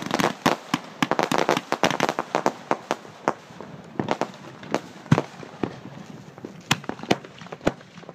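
Fireworks going off overhead: a fast run of crackling bangs that thins out after about three seconds into scattered single bangs, a few of them louder, near the end.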